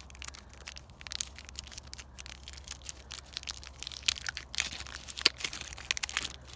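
Stiff clear plastic blister packaging crackling and crinkling as it is flexed and pulled apart by hand: a run of sharp, irregular crackles, loudest about four to five seconds in.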